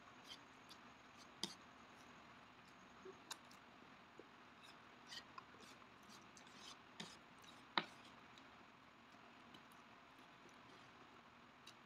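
Chopsticks and a spoon tapping and scraping on the plate as noodles are stirred and a fried egg is cut. Scattered small clicks, the two sharpest about a second and a half in and near eight seconds, over a faint steady hiss.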